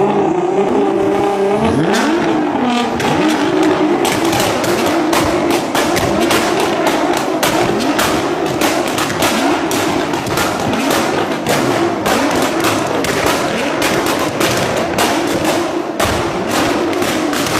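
Nissan GT-R engine revving, its pitch sweeping up and down again and again. From about four seconds in there is a dense run of sharp clicks.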